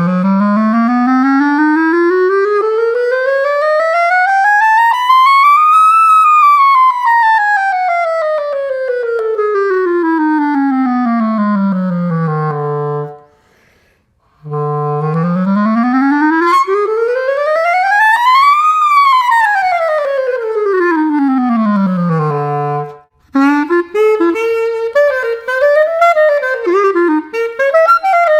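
Cheap plastic clarinet with its stock mouthpiece and reed, sliding smoothly from its lowest notes up about three octaves and back down, twice. Near the end it breaks into a quick run of short, squawking notes. The player blames its squeaky tone on the stock reed and mouthpiece.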